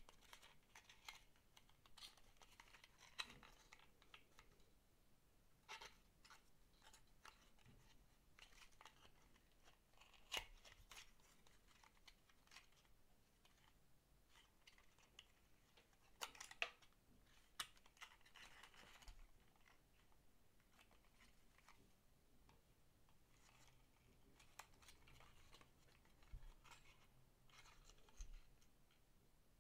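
Faint rustling, scraping and ticking of thin paperboard candy boxes handled by fingers as their flaps are opened and folded, with a few sharper ticks scattered through.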